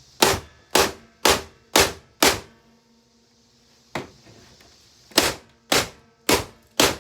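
Hammer blows on a Hoover vacuum cleaner's body, in quick runs of about two strikes a second: five, then one lighter single blow, then four more.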